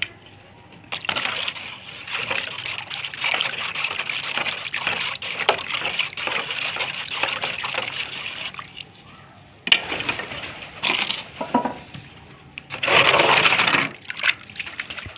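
A wooden stick stirring water in a plastic tray, sloshing it and knocking and scraping against the tray, to dissolve Flagyl (metronidazole) in pigeons' drinking water. The stirring is steady for about seven seconds, pauses, then comes back in shorter bursts, the loudest near the end.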